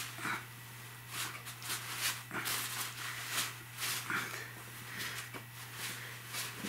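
Mesh bug netting handled and gathered by hand, rustling in a string of irregular soft swishes.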